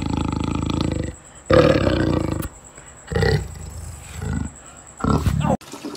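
Young black panther calling with its mouth wide open: two long calls of about a second each, then three shorter ones, cut off suddenly near the end.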